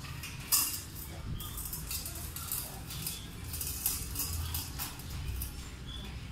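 Stainless steel dog bowl clinking and knocking on a concrete floor as a husky puppy noses at it, with one sharp knock about half a second in.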